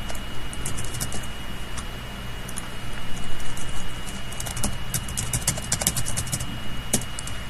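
Computer keyboard typing in several short runs of key clicks, over a steady low electrical hum and a thin high whine.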